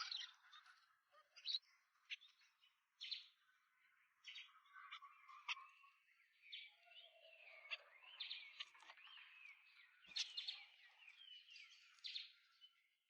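Small birds chirping softly: single sharp chirps in the first few seconds, then a longer run of quick twittering from about halfway through.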